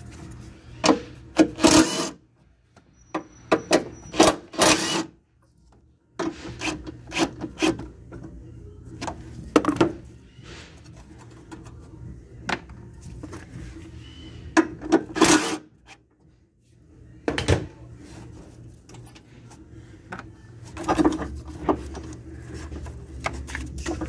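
Hand tools and metal car parts clicking, knocking and scraping at irregular moments during work on a battery tray bracket, with a few sharp clanks.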